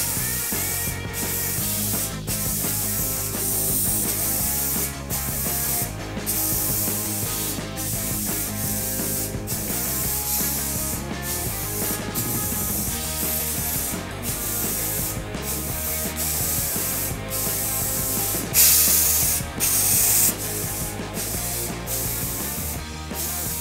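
Aerosol spray-paint can hissing in repeated short bursts, loudest about three-quarters of the way through, with background music underneath.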